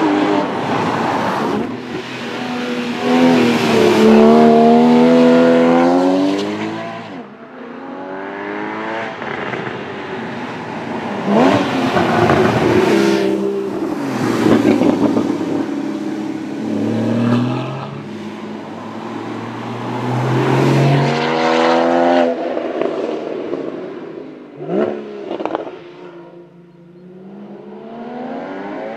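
Porsche Boxster GTS's 3.4-litre flat-six engine revving hard through the gears: several times the engine note climbs in pitch under acceleration, then drops away on lift-off or a shift. A couple of sharp cracks from the exhaust come near the end.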